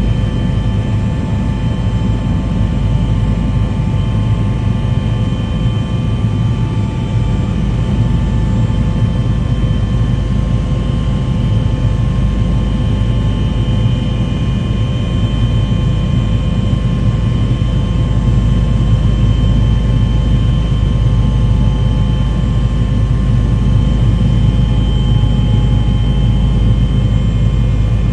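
Steady low engine drone with several constant tones running through it, unchanging throughout.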